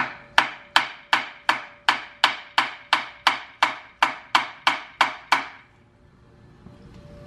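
Hand hammer striking the transmission case in steady, even blows, about three a second, each with a short metallic ring, to knock the transmission loose from the engine. The blows stop about five and a half seconds in.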